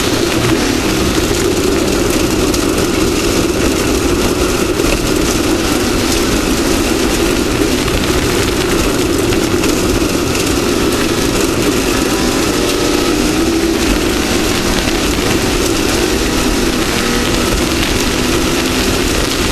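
Off-road race vehicle's engine running steadily at speed, under an even loud rush of noise.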